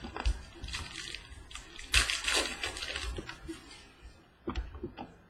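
Trading-card pack wrapper crinkling and rustling in the hands, loudest about two seconds in, with a few sharp taps and clicks of cards handled against the table.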